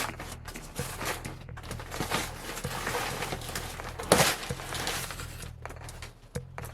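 Rustling, crinkling and scraping of hands-on demolition work, such as handling or pulling insulation and building material, with scattered small knocks and one louder knock about four seconds in.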